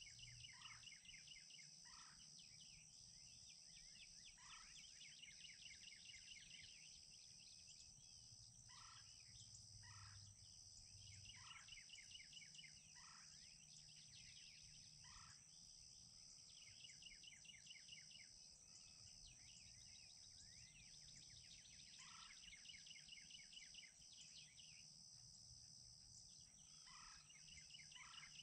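Faint outdoor birdsong: short calls repeated every second or two, interleaved with stretches of rapid chattering trills, over a steady high-pitched hiss.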